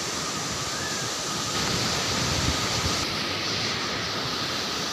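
Steady rushing noise of a waterfall's falling water, with a brief low rumble a couple of seconds in.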